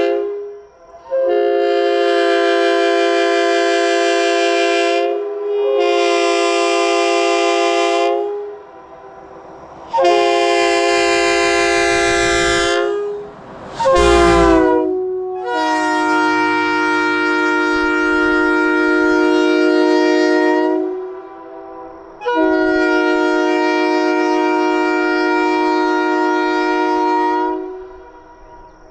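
Leslie RS3K three-chime locomotive air horn blown in a series of blasts, each a steady chord of several tones. Most blasts last three to six seconds, with a couple of short toots between, and some sag in pitch as they cut off.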